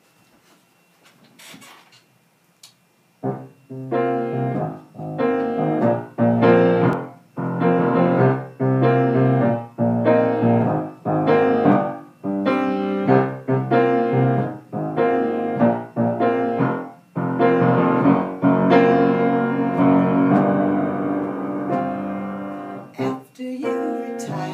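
Piano playing an instrumental introduction. After about three seconds of quiet, chords are struck in a steady rhythm, then a chord rings out longer before the rhythmic chords return near the end.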